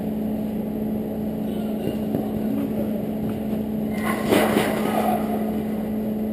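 Steady low hum and background noise of an indoor five-a-side football game. About four seconds in, a brief louder burst comes from players contesting the ball near the microphone.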